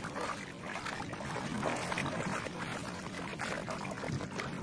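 Feet wading through ankle-deep seawater, with uneven splashing and sloshing at each step.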